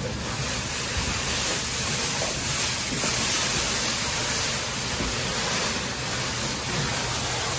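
Foil emergency blanket crinkling and rustling continuously as it is pulled back and handled, with towels and a plastic sauna suit rustling along with it.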